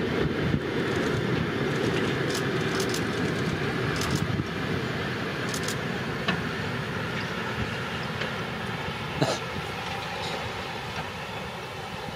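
Steam-hauled passenger train rolling across a bridge: a steady rumble of wheels on rail, with a few scattered clacks, slowly fading as the train moves away.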